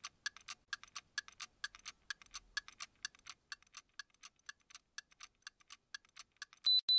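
Watch-movement ticking, rapid and even at about five ticks a second, fading away over the last second or so. Two short, high electronic beeps follow near the end and are the loudest sound.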